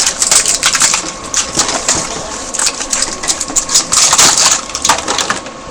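Plastic packaging crinkling and crackling as it is handled and opened close to the microphone, with a steady stream of sharp clicks and rustles.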